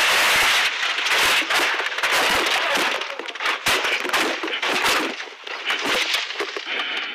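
Rally car crashing off a gravel road, heard from inside the cabin: a continuous clatter of heavy impacts, scraping and smashing bodywork and windscreen glass as the car tumbles through the grass. It dies down near the end.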